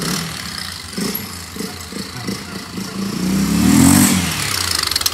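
Honda XRE 300 motorcycle's single-cylinder engine running as it is ridden about, with uneven throttle pulses and one rev that rises and falls between three and four seconds in, the loudest moment. Its exhaust sound has been altered by a washer fitted in the exhaust.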